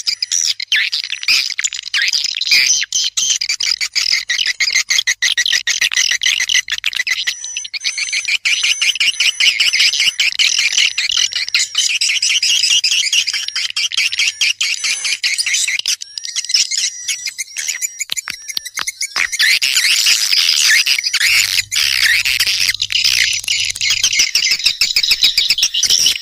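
Recorded calls of edible-nest swiftlets: dense, continuous twittering and chattering, the kind of lure call played to draw swiftlets into a nesting house. The chorus thins briefly about sixteen seconds in, then fills out again.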